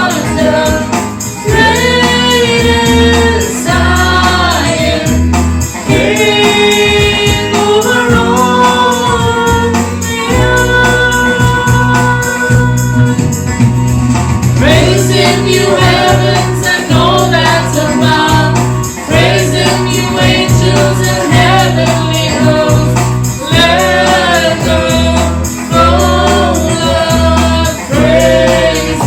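Christian worship song: voices singing a melody over a backing band with bass and a steady beat.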